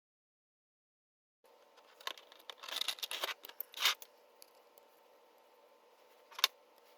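Plastic rubbing and scraping as a small cooling fan is pushed through the holes of a 3D-printed PETG fan bracket, starting about a second and a half in, with one sharp click near the end.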